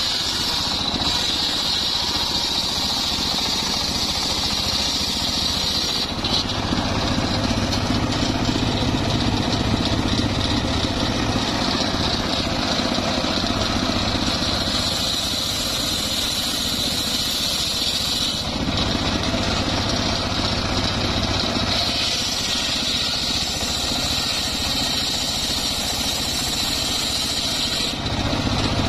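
Homemade bench-mounted circular saw running continuously as its large blade rips trembesi (rain tree) planks lengthwise. The cutting noise swells and eases in stretches as the boards are fed through.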